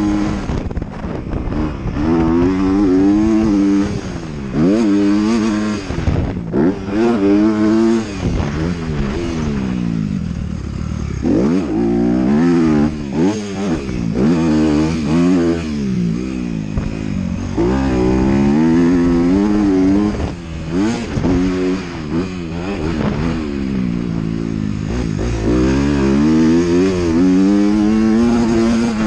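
Motocross bike engine, heard from on the bike, revving up and falling back over and over as the rider accelerates, shifts and backs off through the track's turns and jumps.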